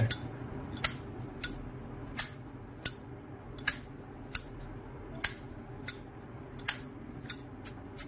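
Zippo lighter's chrome-plated brass case with its hinged lid flicked open and snapped shut over and over: about a dozen crisp metallic clicks, a little more than one a second.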